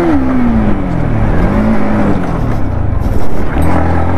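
Yamaha MT-15's single-cylinder engine being ridden. Its pitch drops as the throttle comes off at the start, rises and falls again about a second and a half in, and climbs again near the end, with a rough rushing noise throughout.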